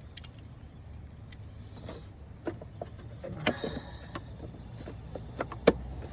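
Scattered light clicks and knocks of parts being handled, with one sharper knock near the end.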